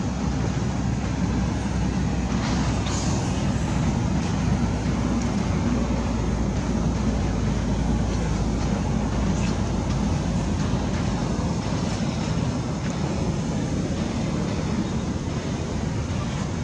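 Steady low rumble with a hiss over it, unbroken throughout, with no animal calls standing out.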